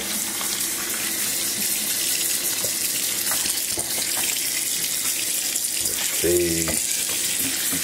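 Water running steadily from a kitchen faucet into a stainless steel sink, splashing over a capuchin monkey being washed under the stream. A voice sounds briefly about six seconds in.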